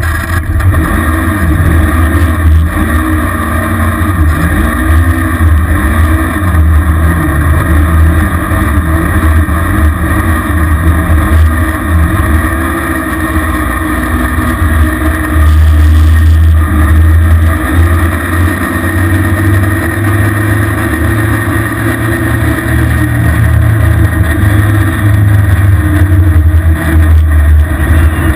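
Small off-road vehicle's engine running while being ridden, its pitch rising and falling again and again as the throttle changes, over a heavy low rumble.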